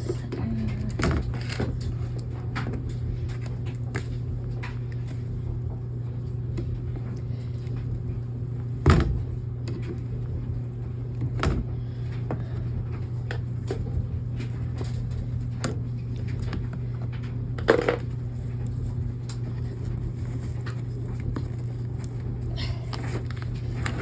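Knocks, clicks and rattles of a furnace filter being handled and pulled out of its slot, three of them sharper and louder, over a steady low hum.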